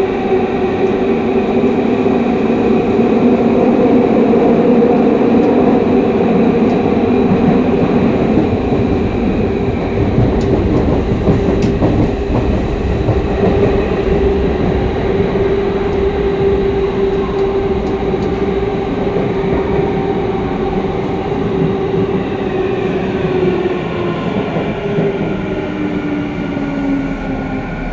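A Y500-series electric train running through a subway tunnel, heard from inside the car: a loud, steady rumble of wheels on rails with a humming tone that holds steady for most of the time. Over the last few seconds the tone drops in pitch as the train slows.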